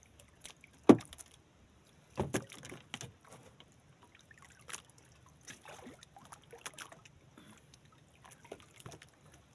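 Scattered knocks and light clatter aboard a small wooden outrigger fishing boat while a handline is hauled in. One sharp knock about a second in is the loudest, and a quick cluster of knocks follows about a second later.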